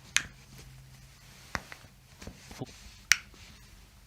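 Joints cracking during a chiropractic adjustment: three sharp pops, one right at the start, one about a second and a half in and the loudest about three seconds in, with a few fainter clicks between.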